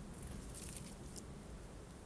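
Tits at a feeder pecking and scrabbling at sunflower seeds: a few light, sharp clicks and rustles over a steady low rumble.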